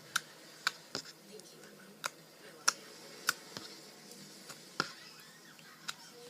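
Slime being pressed and played with by hand, giving sharp, irregular pops and clicks, about eight in all.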